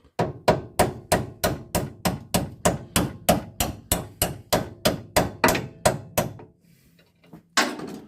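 A hammer striking metal in a fast, even run of about twenty-two blows, three to four a second, then a pause and one harder single blow near the end: the new Land Rover 110 steering damper's tight-fitting end being knocked onto its mounting.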